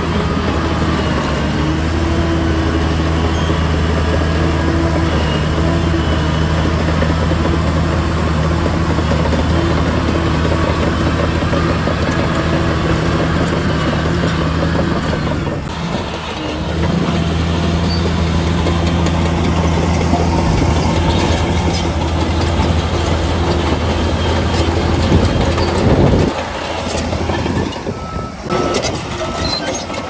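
Heavy diesel engine of earthmoving machinery running steadily, briefly dropping off about halfway through, with a short run of evenly spaced high beeps near the end.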